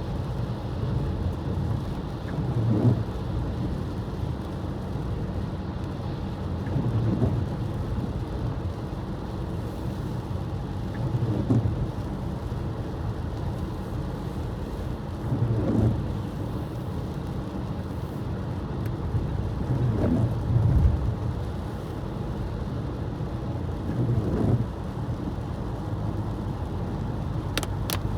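Car cabin noise while driving on a wet road: a steady low rumble of tyres and engine. A swishing swell comes about every four seconds, like windshield wipers sweeping on an intermittent setting.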